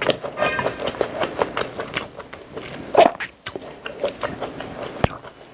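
A person chewing and biting food close to the microphone: irregular wet crunches and mouth clicks, with two sharper clicks about three and five seconds in.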